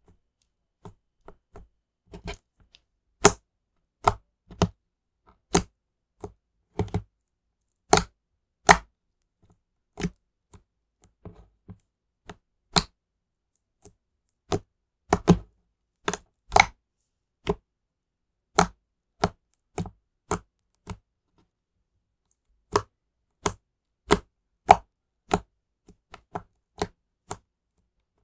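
Thick blue slime being pressed, folded and poked with fingers, giving sharp, irregular pops and clicks about one or two a second as air pockets squeezed into it burst.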